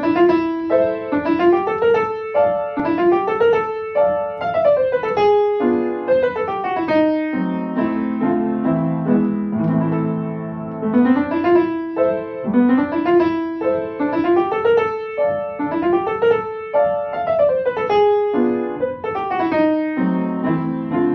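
Upright piano played with both hands: quick rising arpeggio runs repeated over and over, with a stretch of fuller, lower chords in the middle.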